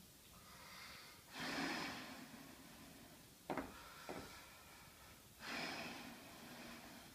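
A weightlifter takes two forceful breaths, each about a second long and about four seconds apart, as bracing breaths while set over a loaded deadlift bar. A couple of short, light clicks fall between the breaths.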